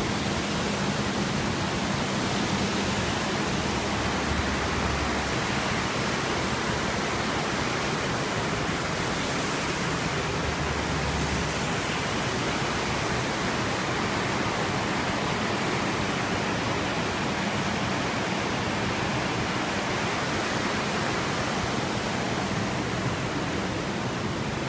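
Steady, even rush of white water from river rapids below a footbridge.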